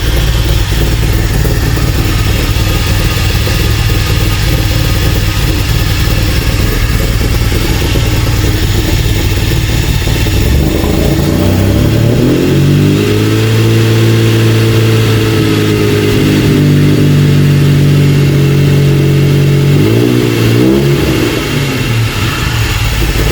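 DeLorean DMC-12's PRV V6 engine, freshly swapped in, idling, then brought up to higher revs about halfway through, held steady for several seconds and dropped back to idle with a brief wobble. The owners think its ignition timing is slightly out.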